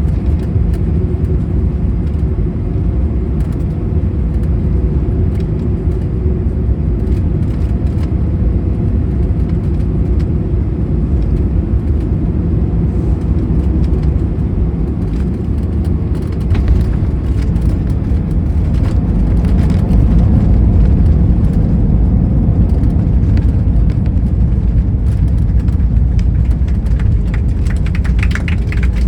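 Airbus A319 cabin noise: a steady low rumble of engines and airflow with a faint steady tone and scattered small rattles, growing a little louder about two-thirds through.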